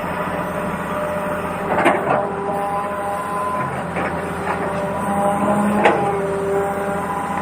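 Small electric motors and gearboxes of radio-controlled construction models whining in short spells at a few steady pitches that start and stop, over a steady mechanical hiss, with three sharp clacks about two seconds apart.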